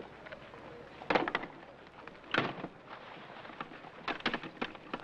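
Guns being put into a strongbox and locked in: metal clanks and clicks. A quick cluster comes about a second in, a single knock about halfway, and several more clicks near the end.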